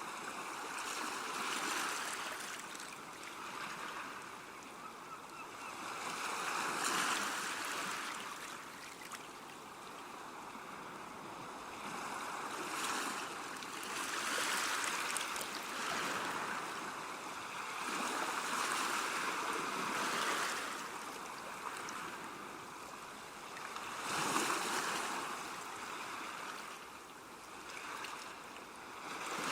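Small sea waves washing up on a beach, the surf hiss swelling and easing every few seconds.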